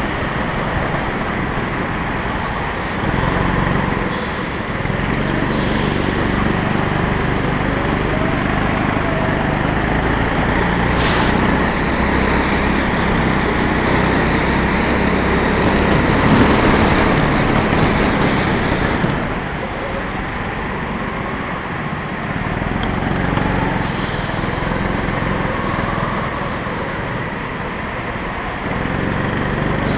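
Go-kart engine running continuously, heard from a camera mounted on the kart, its pitch repeatedly rising and falling as the kart speeds up and slows down through the turns.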